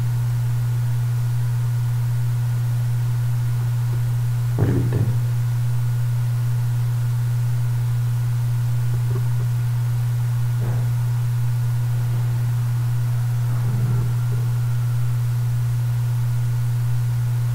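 Steady low electrical hum in the recording, with one short faint sound about five seconds in.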